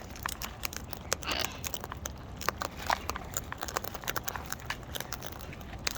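Irregular sharp clicks and crunches of parrots' beaks cracking and nibbling nuts and seeds.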